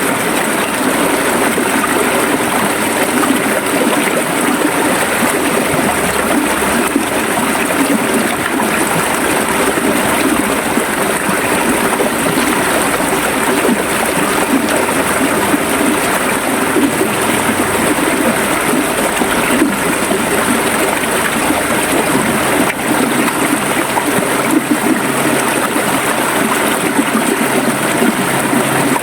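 River water flowing and gurgling over rocks, a steady rush with splashing.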